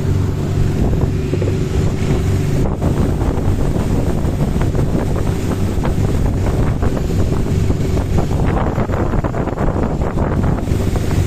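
A boat's engine runs with a steady low hum, under way at sea, with wind buffeting the microphone and the rush of water, which grows rougher near the end.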